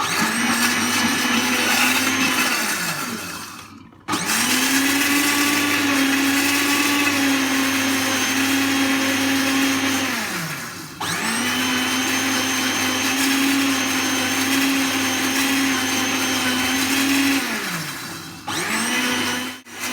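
Electric mixer beating eggs with sugar and vanilla for a cake batter: a steady motor whine that winds down, its pitch sinking, and starts up again three times.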